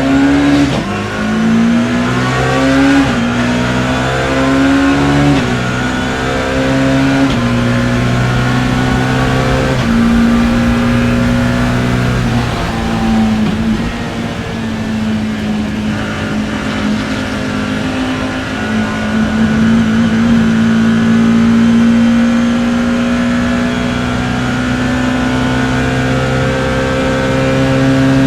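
BMW E30 M3 racing car's four-cylinder engine at full throttle, heard onboard. In the first few seconds it revs up and drops back four or five times as it shifts up through the gears. It then holds high revs, climbing slowly through a long pull.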